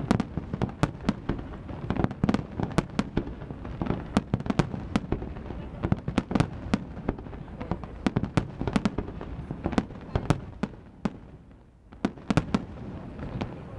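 Fireworks display: rapid, dense volleys of sharp bangs, several a second, easing into a short lull about eleven seconds in before a last handful of bangs.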